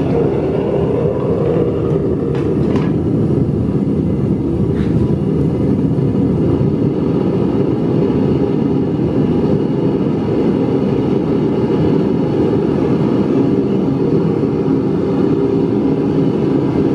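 Burner of a homemade blast furnace firing steadily on low, a constant low-pitched rushing noise. It is being run low to bring the furnace up to temperature slowly while moisture still steams out of the lining.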